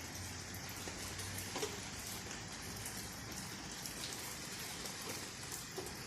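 Steady rain falling, a constant hiss with many small drops pattering and a few louder single drips.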